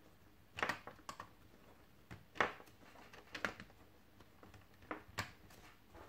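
Hands clicking and tapping on a Lenovo ThinkPad T430s laptop while its power button is pressed: about six short, separate clicks at uneven intervals.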